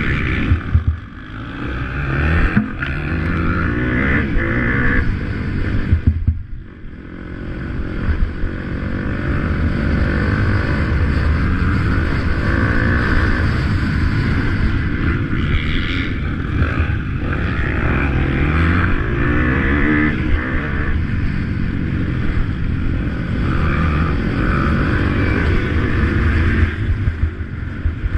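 Motocross motorcycle engines racing, their revs climbing and falling as the riders work the throttle and shift. The engine note drops off briefly about a second in and again around six and a half seconds in.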